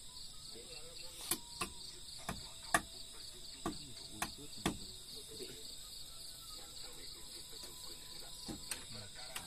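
Insects chirping steadily in a fast, even pulse of about five a second. Several sharp knocks come in the first half, the loudest a little under three seconds in.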